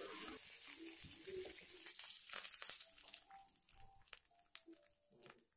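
Faint sizzle of hot ghee tempering with mustard seeds, cashews and curry leaves being poured over hot sambar rice, fading away over the first few seconds, followed by a few light clicks of a steel ladle against the steel pan.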